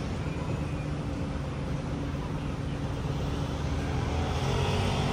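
A steady low engine rumble with a faint drone above it that rises slightly in pitch near the end.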